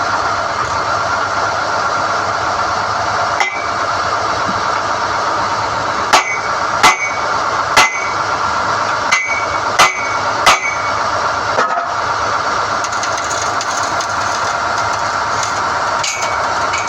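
SDH-1600 core drilling rig running steadily while NQ drill rods are pulled from the hole, with about nine irregular sharp metallic clanks that each ring briefly, most of them bunched in the middle.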